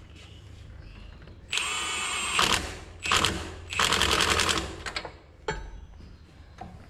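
Milwaukee Fuel cordless impact tool hammering a nut tight on the stump grinder's new hydraulic cylinder, in three bursts: about a second long, a short one, then another of about a second.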